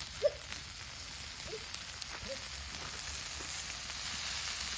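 Sausage sizzling on a barbecue grill grate over a fire pit: a steady hiss with light scattered crackles.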